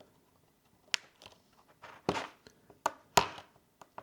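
Small clicks and short scrapes of a thin prying tool being worked against the glued edge of an iPad's screen, trying to get into the seam: one sharp click about a second in, then a few scraping strokes and clicks through the second half.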